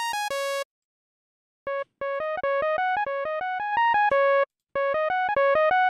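A software synthesizer in Syntorial plays a short looping riff of staccato notes. The riff cuts off about half a second in and starts again a second later with a duller tone, as the low-pass filter cutoff is turned down.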